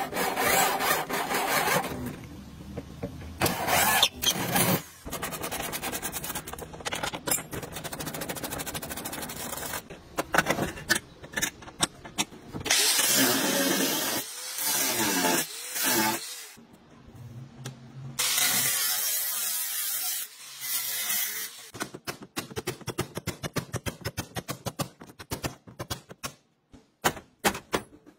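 Power tools working on a car body's sheet steel: an electric drill whirring as it bores into the pillar, then an angle grinder cutting metal about halfway through, ending in a run of rapid sharp knocks.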